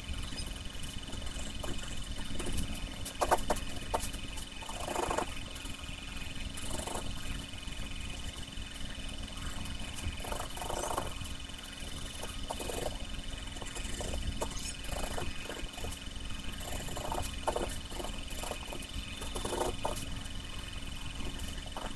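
Wooden pencil scratching on paper in irregular strokes, with louder bursts of quick back-and-forth shading every few seconds. A steady high whine and a low hum run underneath.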